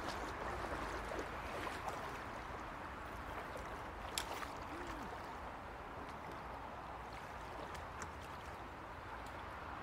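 Shallow stream water running over riffles, a steady rush, with a faint click about four seconds in.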